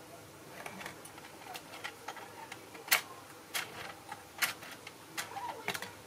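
Small plastic parts of a Bandai steam road roller model kit clicking irregularly as its crank, piston rods and gears are worked by hand. The sharpest click comes about three seconds in.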